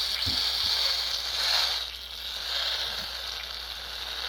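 Air hissing steadily out of a car tire as it is let down, a strong high hiss.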